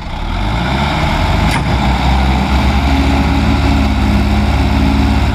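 Tractor diesel engines working under load while hauling a sand-loaded trailer. The engine noise swells in the first half second, then holds steady and loud. A short sharp click comes about one and a half seconds in.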